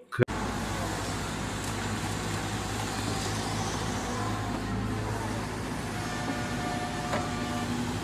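SANY wheeled excavator's diesel engine running steadily under work as the machine digs and loads a dump truck, with a faint higher whine joining in about six seconds in.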